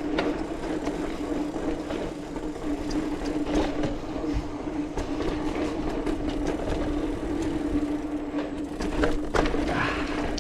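Specialized Rockhopper mountain bike ridden along a dirt trail: tyres rolling over dirt, with a steady hum and scattered sharp clicks and rattles as the bike goes over bumps.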